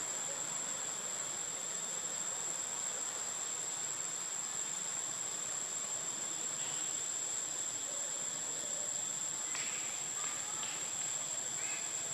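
Steady high-pitched insect drone, one unbroken whine over a faint outdoor hiss, with a few faint short sounds about ten seconds in.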